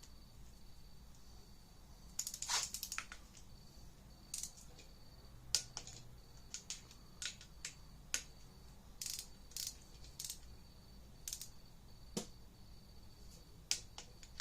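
Torque wrench on the oil pump bolts: irregular sharp clicks and short rattling runs of ratchet clicks, with the busiest run about two seconds in, as the bolts are tightened to 16 foot-pounds.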